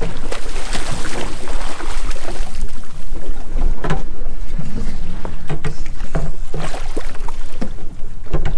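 Wind rumbling on the microphone over choppy water slapping against a boat's hull, with irregular knocks and splashes.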